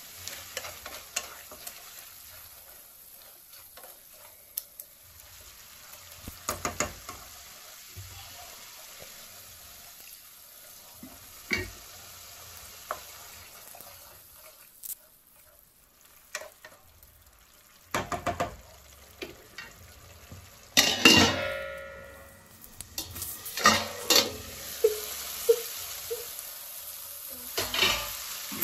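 Tomato-and-spice masala sizzling in a pan while a metal spoon stirs it, with scattered scrapes and taps against the pan. A louder, ringing metallic clatter comes about three-quarters of the way through.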